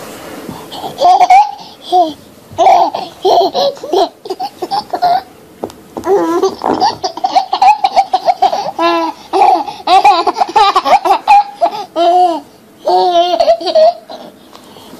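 A small child laughing in repeated high-pitched bursts, with short pauses between the fits.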